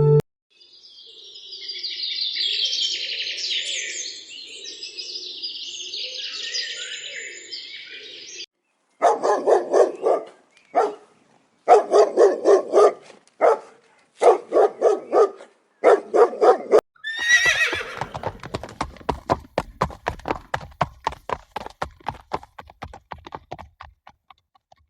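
Horses neighing: a run of short pulsed calls, then, from about halfway on, a long whinny that starts high and falls away in a quavering trill.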